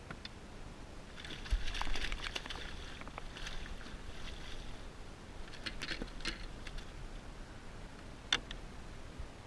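Water splashing as a hooked fluke (summer flounder) is scooped into a landing net beside a kayak, followed by a few light knocks and clicks as the net is lifted aboard, with one sharper knock near the end.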